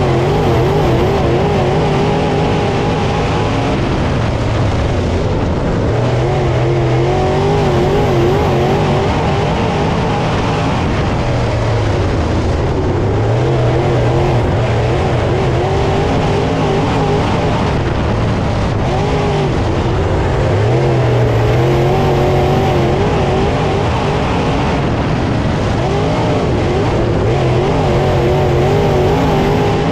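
A field of dirt late model race cars with V8 engines running at speed around the track, several engines overlapping. Their pitch wavers up and down continuously, and the sound swells every few seconds as the pack comes around.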